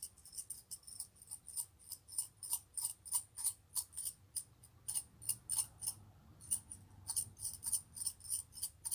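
Seven coins shaken in cupped hands: a quick, irregular run of small metallic clinks, with a short pause about six seconds in.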